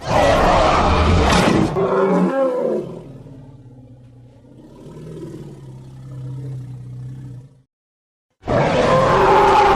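Composite creature roar sound effect layered from tyrannosaurus, spinosaurus, mammoth, lion and tiger roars. A loud roar lasts about three seconds and trails off into a quieter, lower drawn-out tail that cuts off abruptly. After a short silence a second loud roar starts near the end.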